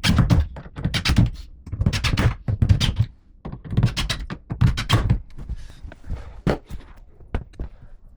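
A run of irregular knocks and thuds, two or three a second for the first five seconds, then sparser and lighter.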